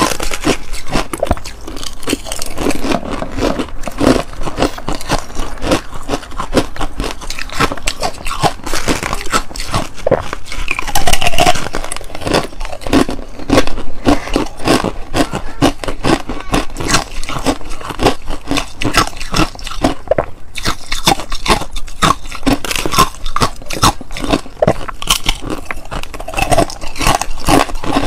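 Close-miked biting and chewing of hard frozen ice: a steady stream of sharp crunches and cracking as the ice breaks between the teeth, with a couple of louder bites near the middle.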